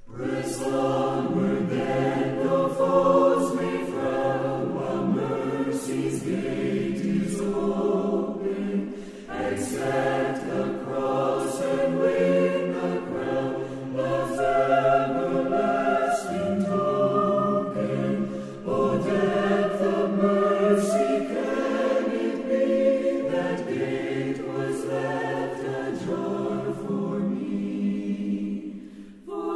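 A choir singing a song in several voices, phrase after phrase with short breaks between them. It starts abruptly and dips away near the end.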